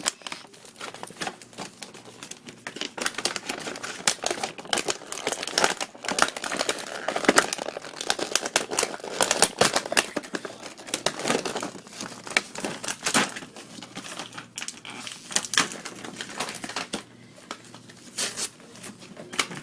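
Action-figure packaging being handled and pulled apart: the box and inner packing crinkle and rustle, with many irregular clicks and snaps as the pieces are worked loose.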